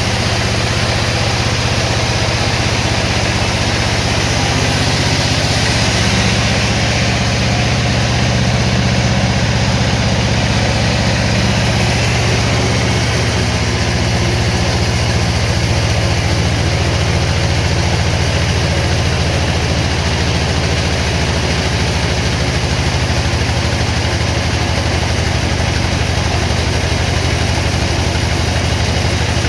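Sawmill machinery running steadily with a continuous low engine hum. A band of higher-pitched noise rises for several seconds, roughly four to twelve seconds in.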